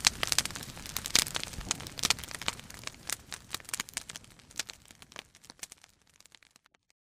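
Crackling: irregular sharp clicks and pops over a faint hiss, growing sparser and fading away after about six seconds.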